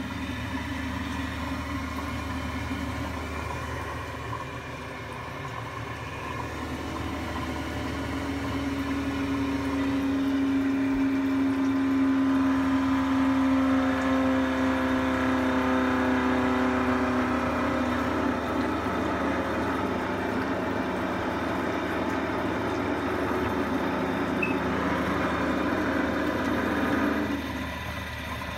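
Vaillant boiler with a round Giannoni parallel-coil heat exchanger, firing, making an 'aeroplane' drone over the steady hum of the burner and fan. The drone swells over the first several seconds, is loudest around the middle with a pitched hum that sinks slightly, and cuts off suddenly near the end. It is the sign of a blocked heat-exchanger coil, most likely one coil getting blocked.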